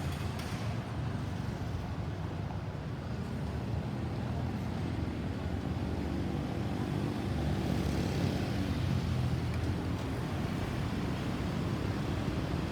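Road traffic going by, with a steady low rumble. A vehicle's engine grows louder about five seconds in and is loudest around eight to nine seconds, then fades. No siren is sounding.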